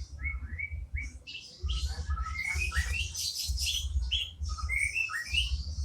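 Cucak ijo (leafbird) singing: a fast, varied stream of short chirps, rising whistled notes and buzzy trills, over a low pulsing rumble.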